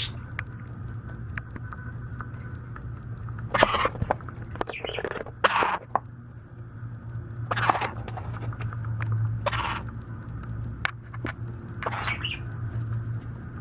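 A baby white-capped pionus parrot giving short hunger calls, about six of them spaced a second or more apart, with small scratching clicks between them.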